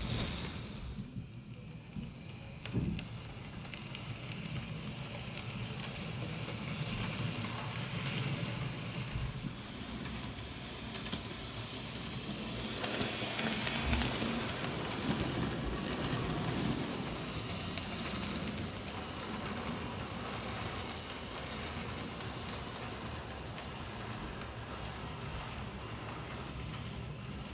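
Model train running on the layout track: a Bachmann Spectrum 4-8-2 model steam locomotive pulling cars, its motor and wheels giving a steady running noise with scattered small clicks and one sharper knock about three seconds in.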